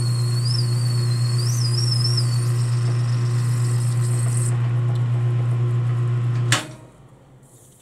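Metal lathe running with a steady motor hum while a boring bar cuts an internal taper in the chucked workpiece, with a high wavering squeal from the cut during the first two seconds or so. About six and a half seconds in there is a sharp click, and the hum drops away as the lathe is switched off.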